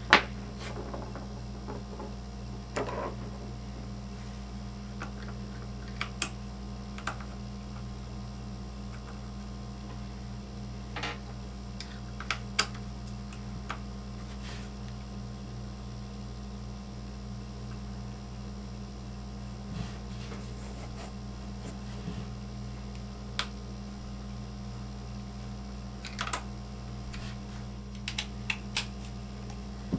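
Sparse small clicks and taps of metal screws, pins and pliers being handled while fitting parts to an RC truck's rear axle carrier, a few at a time with pauses between, over a steady low hum.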